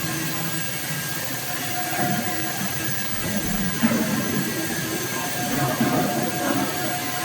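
CNC plate sawing and milling machine running: a steady whine over a hiss, with a single sharp click about four seconds in.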